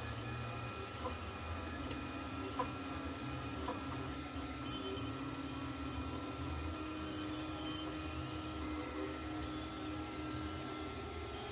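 Belt-driven delta 3D printer running a print: its motors whine in steady tones over a low hum, and one tone steps up in pitch about two-thirds of the way through and stops near the end. A few faint clicks come in the first few seconds.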